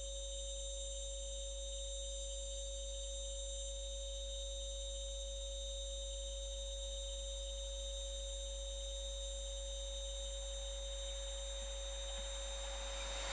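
A steady electronic whine of several unchanging pure tones over a low hum. In the last moment the noise of an approaching Class 66 diesel locomotive and its container train begins to swell.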